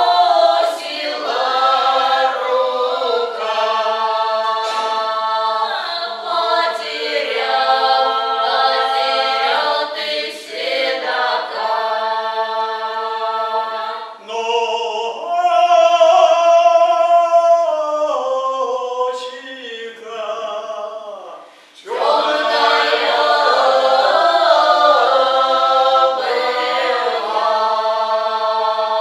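Small folk ensemble of men's and women's voices singing a Cossack-style song about the Don in harmony, with long held notes and a brief break about 21 seconds in.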